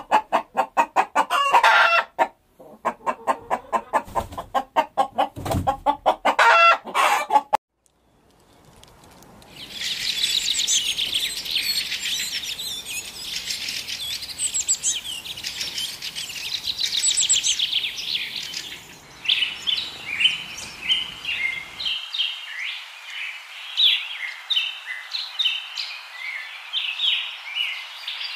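Chickens clucking in quick runs for about the first seven seconds. After a brief gap, small songbirds sing: first a fast, dense twittering, then, from about two-thirds of the way in, the short, varied high phrases of a European robin's song.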